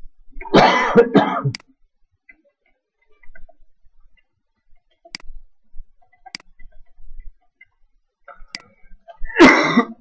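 A person coughing hard, a double cough just after the start and another rough cough near the end, with a few sharp mouse clicks in between.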